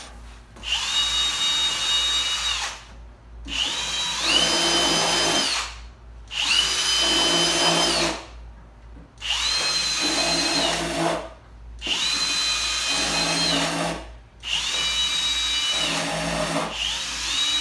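Power drill run in seven short bursts of about two seconds each, its motor whine rising quickly as it spins up, holding steady, then dropping as the trigger is released.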